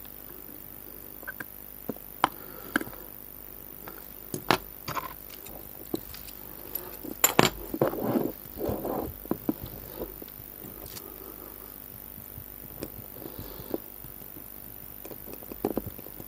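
Small clicks, taps and handling rustles as a watch movement is turned over in a metal movement holder and its dial fitted on. The sounds come scattered, busiest about halfway through, with a still stretch before a few last clicks near the end.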